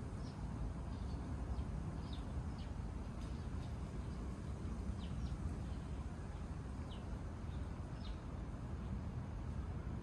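Outdoor ambience: a steady low background rumble with short, high bird chirps, each a quick downward slide, scattered irregularly throughout.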